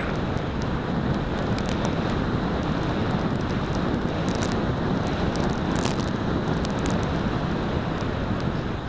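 Steady wind rushing over the onboard camera's microphone of a foam flying wing gliding in low, with no motor sound: the electric motor is throttled off for the landing approach.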